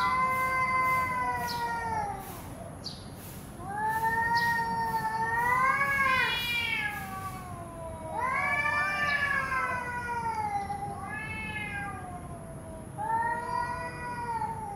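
Two cats caterwauling at each other in a standoff. There are four long, drawn-out yowls that rise and fall in pitch, and two voices overlap in the third. This is the warning yowl of cats squaring up to fight.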